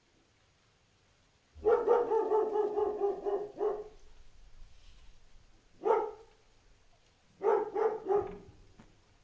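Dog vocalizing while two dogs play-wrestle in courtship. First comes one long, wavering call lasting about two seconds, then a single short bark a few seconds later, and three quick barks near the end.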